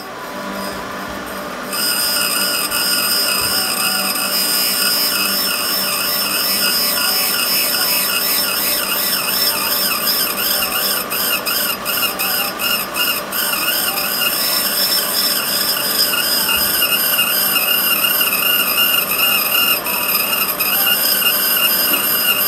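Valve refacing machine grinding the face of a Toyota 4A engine valve: the chucked valve spins against the grinding wheel with a steady grinding whir and a high tone that wavers up and down. The sound comes in at full strength about two seconds in.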